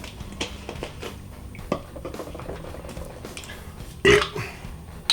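A man chugging green tea from plastic half-litre bottles: quiet swallowing with small clicks and knocks from the bottle, then one louder, sharp sound about four seconds in.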